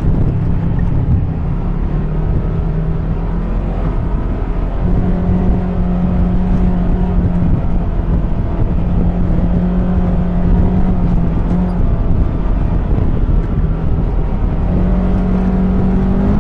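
ATV engine running under way, its pitch holding steady and then shifting up or down a few times with the throttle, over a heavy low rumble.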